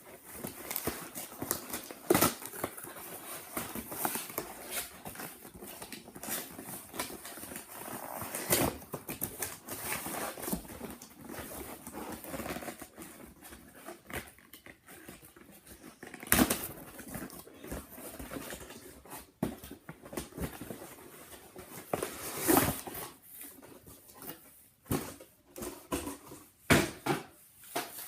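Packaging and small items handled close to the microphone during an unboxing: irregular rustling and crinkling with sharp clicks and taps.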